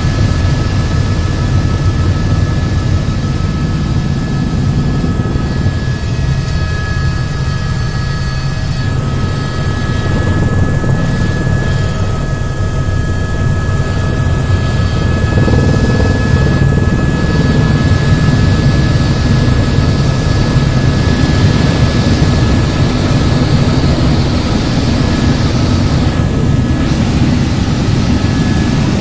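Helicopter in flight: steady rotor and engine noise with a thin, steady high whine over it.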